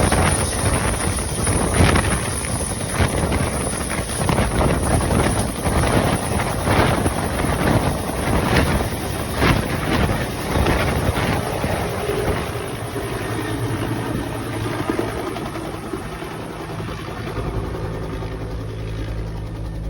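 Bell 212 helicopter with its two-bladed main rotor and twin turboshaft engines at takeoff power: a loud, surging whirr of rotor and turbine. Over the second half it settles into a steadier hum and grows gradually quieter.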